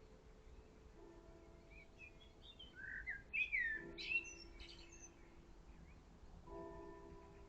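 A songbird singing: a run of quick chirps and whistled down-slurs, loudest in the middle. Faint steady tones are held underneath.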